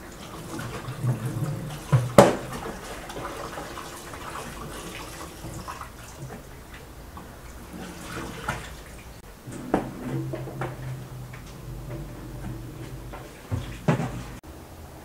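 Tap water running and splashing over raw chicken pieces being rubbed and rinsed by hand in a bowl in a steel sink, with a few sharp knocks, the loudest about two seconds in.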